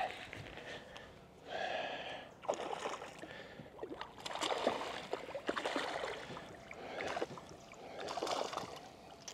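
Water splashing and sloshing at the surface as a hooked spotted bass is fought and reeled to the side of the boat, with a few sharp ticks and knocks of handling.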